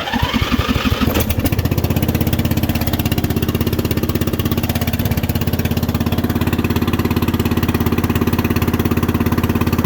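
Riding mower's 14.5 hp Briggs & Stratton single-cylinder overhead-valve engine starting: it cranks and rises in pitch for about a second, then catches and runs steadily.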